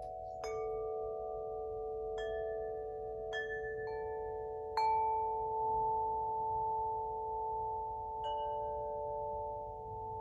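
Spring wind chime, tuned to the wood element, ringing: about six clear metallic notes struck at irregular intervals, each sustaining long so the tones overlap and blend.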